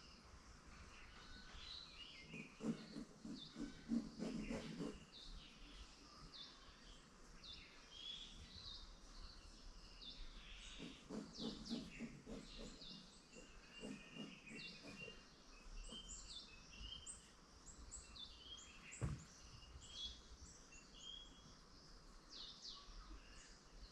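Small birds chirping and twittering in many short, overlapping calls. Twice, a bout of lower, rougher pulsing calls from some other animal joins them, and there is a single click near the end.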